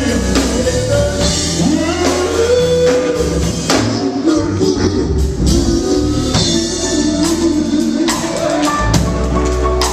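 Live gospel band music: a lead vocalist singing over electric guitar and a drum kit, with a heavy bass line.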